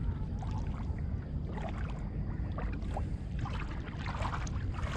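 Water splashing and lapping against a kayak on the sea, in short irregular splashes, over a steady low rumble of wind on the microphone.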